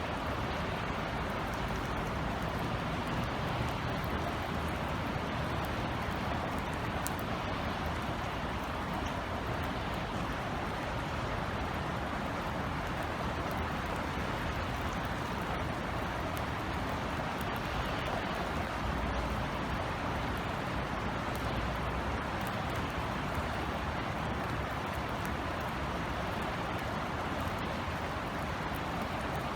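Steady rain falling, an even hiss with scattered faint drop ticks, over a low rumble.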